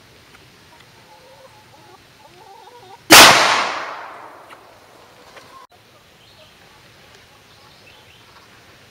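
A single 9mm pistol shot about three seconds in: one sharp, loud crack that dies away over about two seconds as it echoes.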